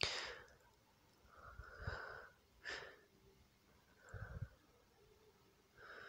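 Faint breathing from a person, a few soft breaths a second or two apart.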